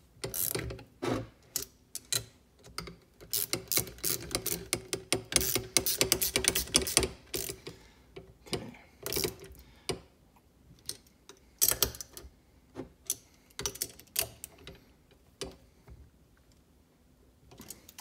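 Clicks and taps of a Hurst short throw shifter's metal and plastic parts being handled and fitted together by hand, with a dense run of rapid clicking a few seconds in, then scattered single clicks.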